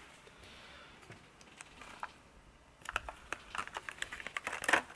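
Quiet at first. About three seconds in comes a quick run of small clicks and crinkles from a clear plastic blister pack being picked up and handled on a table, loudest just before the end.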